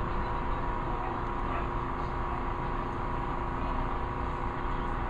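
A steady mechanical hum that holds the same pitch throughout.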